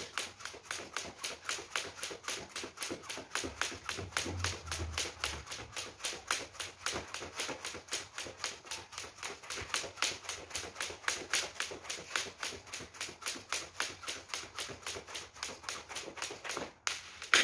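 Skipping rope: the rope ticks against a wooden floor on every turn in a fast, even rhythm. It stops shortly before the end, followed by one louder knock.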